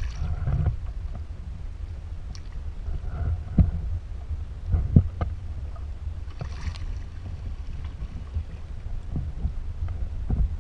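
Steady wind rumble on the microphone, with a tarpon splashing at the surface beside a kayak at the start and again about six and a half seconds in. A few sharp knocks come in between.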